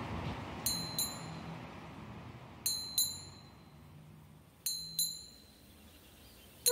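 A small high-pitched metal bell dinging in pairs: two quick strikes, repeated three times about two seconds apart, each ringing out briefly. A low rumble fades away underneath.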